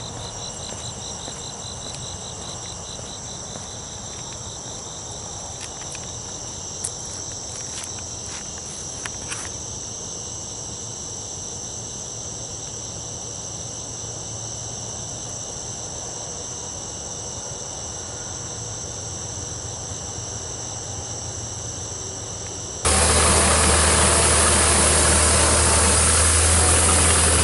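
Crickets or other night insects singing steadily in several high, even tones over a low hum, with a few faint clicks. Near the end the sound cuts abruptly to a much louder, steady rushing noise with a deep rumble.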